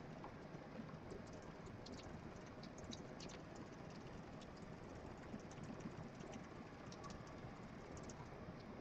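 Dwarf hamster's claws faintly scratching and tapping on a smooth wall, in quick irregular clicks over a steady low hiss.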